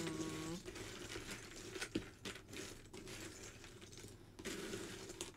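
Cardboard jigsaw puzzle pieces rustling and clicking against each other and the wooden tabletop as hands sift through a loose pile, with a few sharper clicks scattered throughout.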